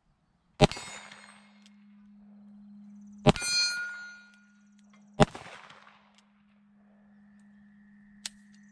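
Three shots from a Cimarron Pistoleer .45 Colt single-action revolver, two to three seconds apart; the second is followed by the ringing clang of a hit steel plate. Near the end comes a single light click as the hammer falls on a round that fails to fire.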